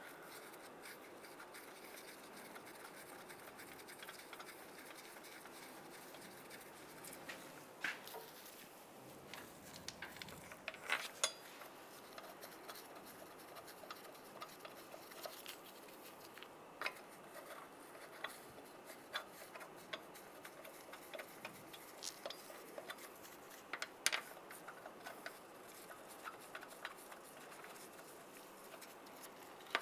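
Lug bolts being threaded into the wheel hub by hand: faint, scattered metallic clicks and ticks over a low hiss.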